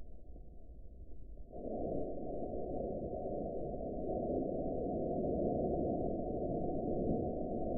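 Steady radio static hiss from a weather radio receiver between announcements, dull with no treble; it gets louder about a second and a half in.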